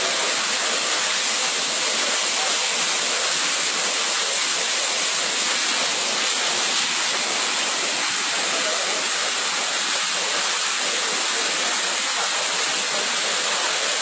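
Waterfall pouring over boulders into a rock pool: a steady, unbroken rush of falling water, heaviest in the high hiss.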